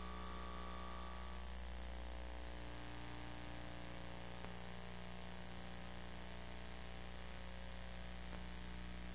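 Steady VHS playback hiss with a low electrical hum and no music or speech. A faint higher steady tone drops out about a second and a half in.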